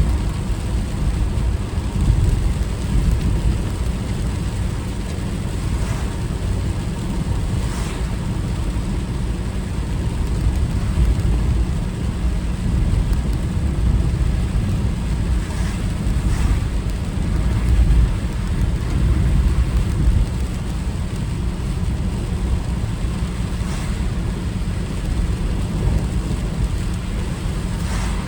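Car driving through typhoon rain: a steady low rumble of road and engine noise with an even hiss of rain and wet tyres over it.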